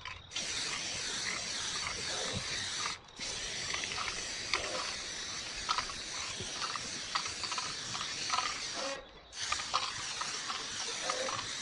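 Aerosol spray-paint can hissing in long sprays, with short breaks about 3 seconds in and about 9 seconds in.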